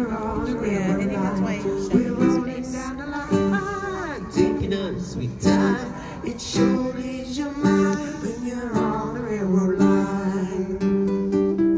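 Live band music: a strummed acoustic guitar with a voice singing over it.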